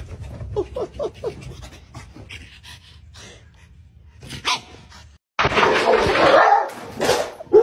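A small dog panting, with a few short pitched whimpers in the first second or so. After a brief break, a loud rushing noise lasts about a second and a half.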